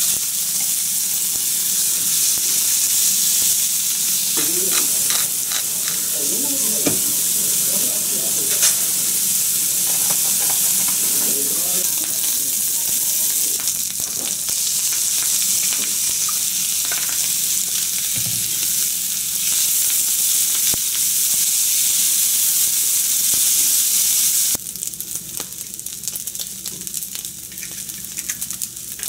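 Chicken, vegetables and rice stir-frying in a nonstick frying pan: a steady sizzle with chopsticks clicking and scraping against the pan. About 24 seconds in, the sizzle drops suddenly to a quieter level.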